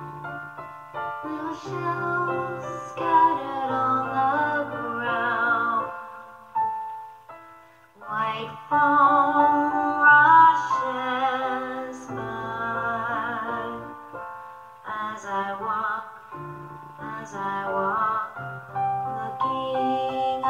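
Music: a slow song with piano accompaniment and wordless sung vocal lines with vibrato carrying the melody, with a brief pause about seven seconds in.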